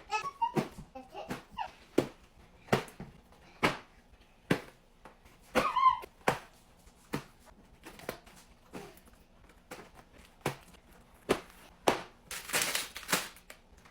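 Snack packages being handled and set down one after another: irregular knocks and taps, with a burst of crinkling plastic wrapper a little after twelve seconds. A brief squeaky pitched sound comes about six seconds in.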